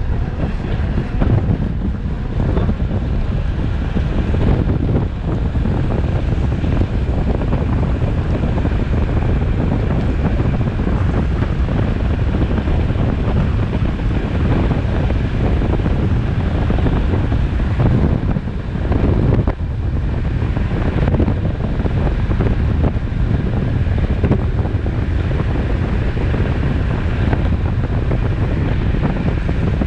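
Strong wind rushing over the camera microphone of a road bike descending at speed: a loud, steady roar of buffeting that eases briefly about two-thirds of the way through.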